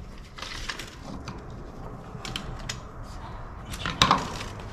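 Light clicks and knocks of hand tools being handled, with one sharper click about four seconds in.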